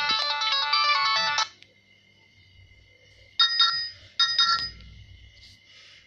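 Polyphonic MIDI ringtone from a Nokia 6030 playing through a Nokia 2630's small loudspeaker: a fast run of many overlapping notes that stops abruptly about a second and a half in. Two short, loud bursts of tones follow, about three and a half and four seconds in.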